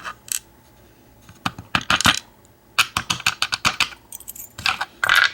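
Small metallic clicks and clinks from an American 1100-series padlock and its tools being handled, coming in scattered groups of sharp taps.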